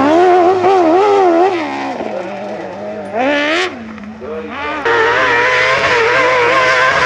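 Kartcross buggy engines racing on a dirt track, the pitch rising and falling with the throttle. There is one sharp rev about three seconds in and a brief dip, then a louder engine sound from about five seconds.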